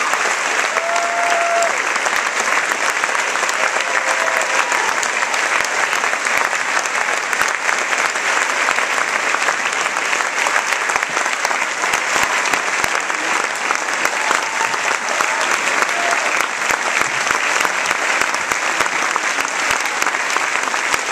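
Large theatre audience applauding steadily, a dense patter of many hands clapping, with a few faint voices calling out among it.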